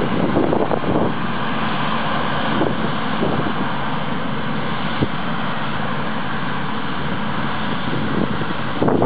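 Combine harvester running steadily while harvesting wheat, with wind buffeting the microphone near the start and end and a single sharp click about five seconds in.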